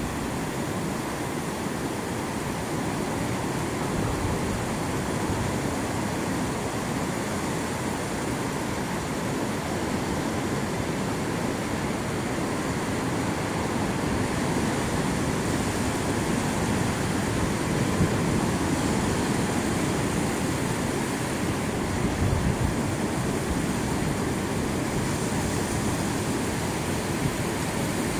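Ocean surf breaking offshore and shallow waves washing up and back over flat wet sand: a steady rush of water that swells a little now and then.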